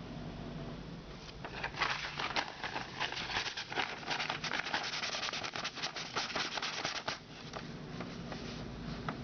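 Sandpaper on a hand sanding block rubbed back and forth, a run of quick scratchy strokes that is busiest in the middle and lighter near the start and end. A faint steady hum runs underneath.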